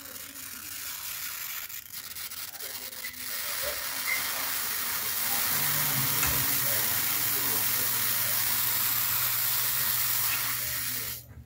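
Small Tesla coil running, its brush discharge from the top point making a steady hissing sizzle over a low hum. The sizzle builds up over the first few seconds and cuts off suddenly near the end as the coil is switched off.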